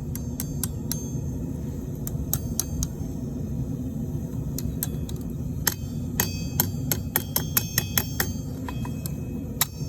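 Hammer striking iron on an anvil, each blow ringing metallically; scattered blows at first, then a quicker run of about four blows a second in the middle, over a steady low rumble.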